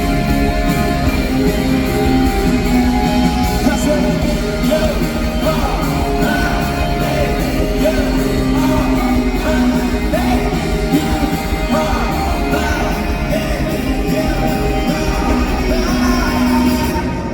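Live rock band playing a song with singing, amplified in a large hall. The music cuts off suddenly near the end.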